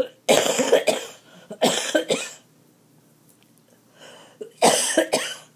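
A person coughing hard in three fits, each of two or three coughs: two fits close together near the start and a third near the end.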